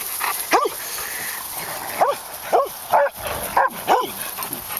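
Dogs barking in play: about six short, sharp barks, one just after the start and a quick run of five in the second half.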